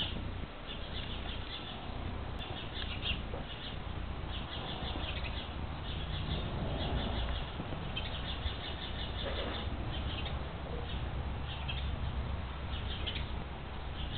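Small birds chirping in quick repeated clusters over a steady low rumble.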